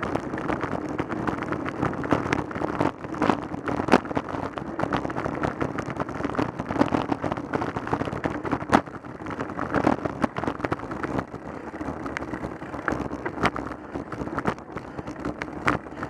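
Road noise from a camera on a road bike ridden on tarmac: a steady rumble of tyres and moving air, broken by frequent irregular knocks and rattles as the bike goes over the road surface.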